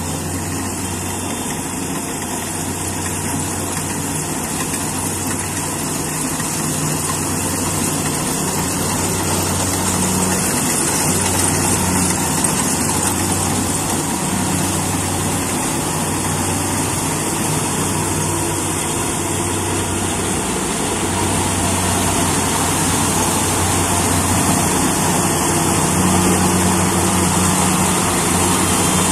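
Combine harvester running steadily under load as it works through the crop, its engine hum and a dense hiss slowly growing louder as the machine comes closer.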